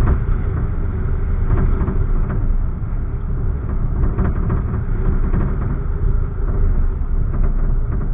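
Car driving along a street, heard from inside: a steady low rumble of engine and tyres, with a sharp knock right at the start and a few faint rattles after it.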